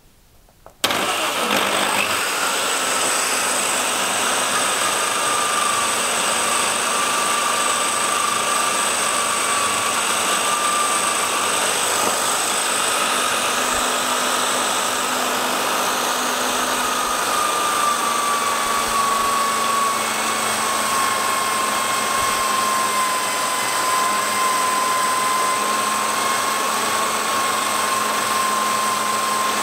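Corded electric drill clamped in a bench starts about a second in and runs steadily with a high whine, spinning a felt polishing wheel for polishing a steel knife blade. The whine sags slightly in pitch partway through.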